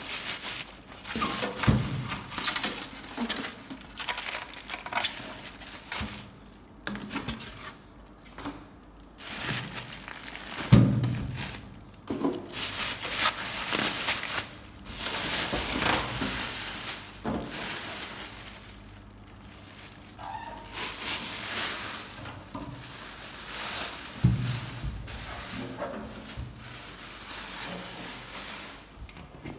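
Clear plastic wrapping crinkling and rustling in irregular bursts as it is handled and pulled off an electric oven, with a few low knocks from the oven being moved.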